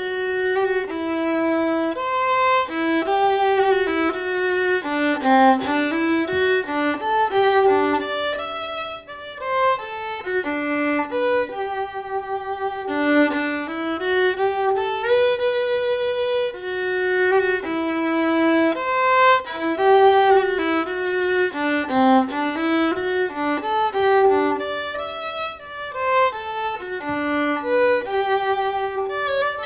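Background music: a solo violin playing a melody of held notes with occasional slides between them.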